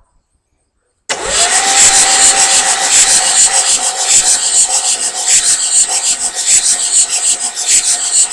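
Starter motor cranking a 6.9-litre IDI V8 diesel engine. It cuts in suddenly about a second in with a whine that rises and then holds steady over a rapid, even pulsing. The engine is being turned over to bleed the fuel system.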